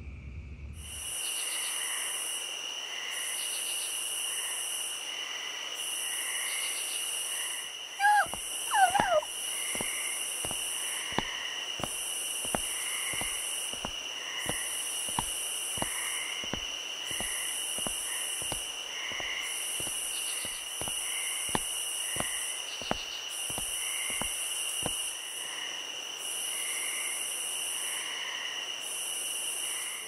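Night insect chorus: a steady high-pitched buzzing that pulses about once a second over steady trills and repeated chirps. About eight seconds in there is a short wavering animal call, followed by a run of light clicks roughly twice a second.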